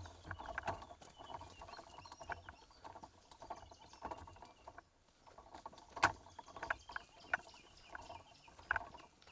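Footsteps of several people walking through dry forest undergrowth: irregular faint crunches and snaps of leaves and twigs, with a sharper snap about six seconds in and another near the end.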